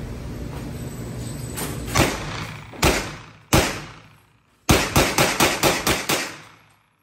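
Hi-Point 995 9mm carbine firing: three shots about a second apart, then seven in quick succession at about four a second, each with a short echoing tail, over steady background noise. The sound cuts off abruptly near the end.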